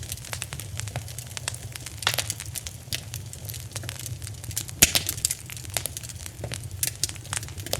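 Fire crackling: irregular snaps and pops over a steady low rumble of flame, with one louder pop near the five-second mark.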